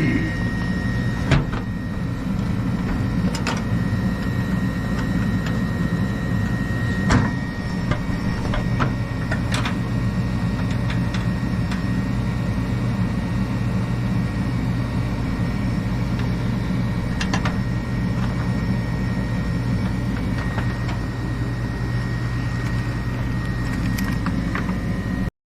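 Gas furnace running steadily, its inducer and blower motors giving a constant hum with a faint high whine over it and a few sharp clicks. The inducer motor had seized and was freed by hand, and the owner says it is going bad.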